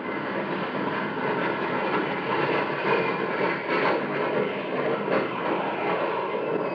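Sound effect of a formation of jet airplanes roaring overhead: a steady rushing roar with a few swells.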